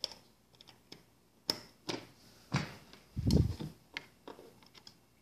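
Scattered light clicks and knocks of a USB cable being handled and its plug fitted into a laptop's USB port, with one duller knock about three seconds in.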